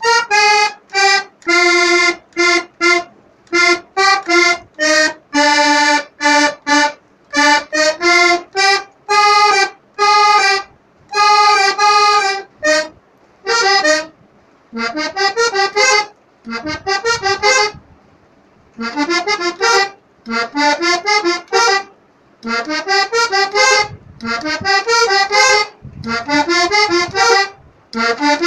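Accordion played solo in short phrases with brief pauses between them, the tune picked out note by note. About halfway through, fuller chords and low bass notes join the melody.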